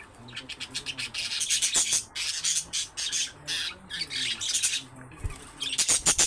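Budgerigars chattering and squawking in fast, dense runs of high-pitched calls, dropping off for a moment about five seconds in, then starting up loudly again near the end.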